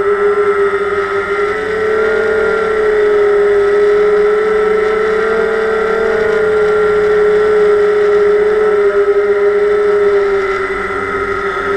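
DJI Phantom quadcopter's motors and propellers buzzing steadily in flight, heard through the GoPro mounted on the drone, with the pitch wavering slightly up and down.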